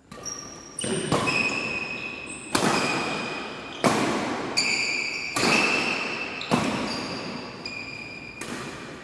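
A badminton rally: rackets striking the shuttlecock about once a second, each hit echoing, with sneakers squeaking on the court floor between shots.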